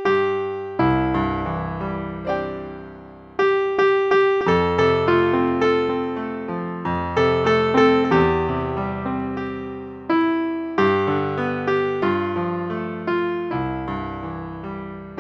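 A slow solo piano piece: notes and chords struck and left to die away, with low bass notes coming in every few seconds.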